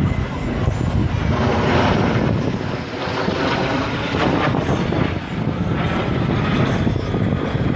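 Engine noise of a three-aircraft display formation flying overhead and away: a steady, loud rushing drone. Some wind on the microphone is mixed in.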